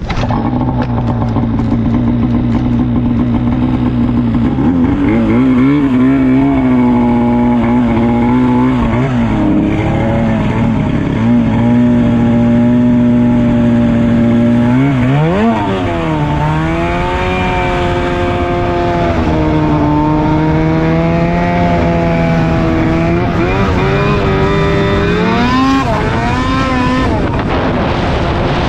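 Arctic Cat M8000 Hardcore snowmobile's C-TEC2 800 two-stroke twin running through an NPP exhaust under way. It holds a steady pitch at first, then rises and falls several times, with the sharpest rise and drop about fifteen seconds in.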